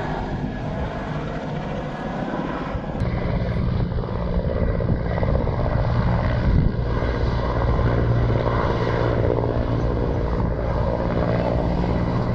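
A motor running steadily with a low, even hum, which grows louder about three seconds in.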